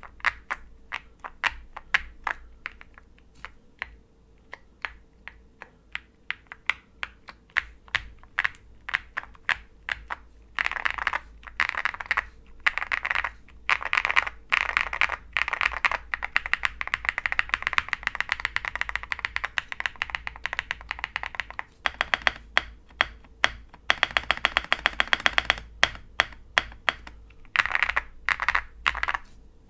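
Typing on a custom mechanical keyboard: OwLabs Jelly Epoch with Konpeitou switches, PC plate and MT3 PBT keycaps. Single key presses come at first, then fast typing from about a third of the way in, with a very rapid even run of keystrokes later and a last short burst near the end.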